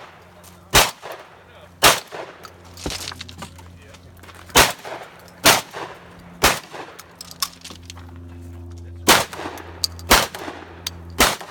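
Shotgun fired in a string of about nine shots during a timed competition stage, mostly about a second apart, with a longer pause of about two and a half seconds in the middle.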